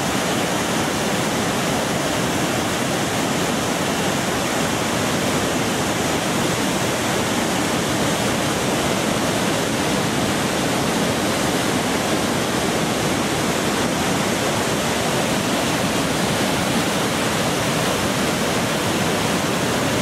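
Gullfoss, a large two-tiered waterfall, rushing steadily: a loud, even noise of falling and churning whitewater that never lets up.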